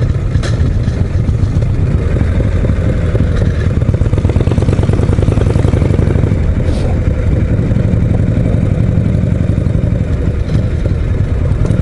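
Harley-Davidson Shovelhead V-twin motorcycle engine running steadily while the bike is ridden at cruising speed, heard from the rider's seat.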